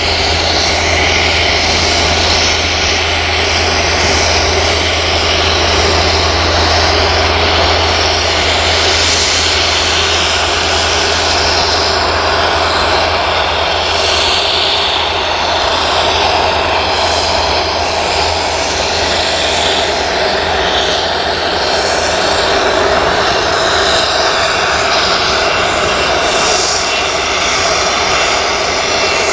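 Embraer ERJ regional jet's twin turbofan engines during landing and roll-out on the runway: a steady jet engine whine and rush.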